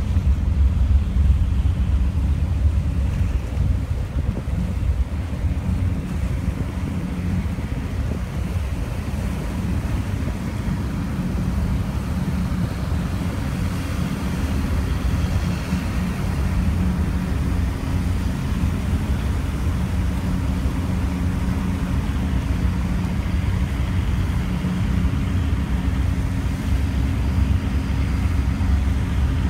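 Austal 48 m catamaran ferry running past at speed: a steady low rumble from its engines with the rush of its wash, and wind on the microphone.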